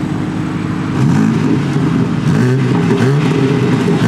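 BMW G80 M3's twin-turbo inline-six running through its stock exhaust in sport mode. It is steady for about a second, then revved repeatedly, the note climbing and dropping several times with a deep tone.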